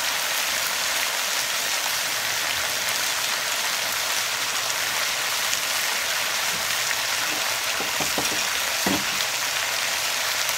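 Frozen mixed vegetables sizzling in a hot wok on high heat, a steady hiss of ice and moisture hitting the hot pan because they went in without thawing.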